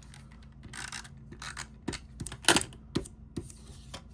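Cardstock pieces being handled and rubbed into place: short paper rustles and scrapes with a few light taps, the loudest rustle about two and a half seconds in.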